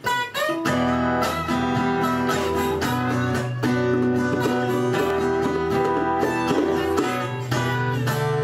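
Live folk band playing an instrumental passage: acoustic guitars strummed over held keyboard chords and a low sustained bass line, with no singing.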